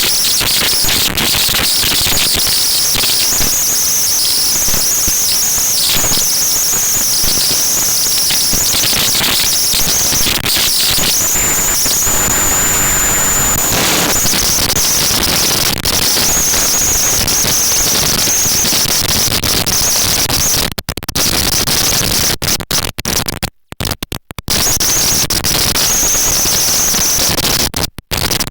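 Strong wind buffeting the camera's microphone: a loud, rough rushing noise that cuts out in several short gaps in the last few seconds.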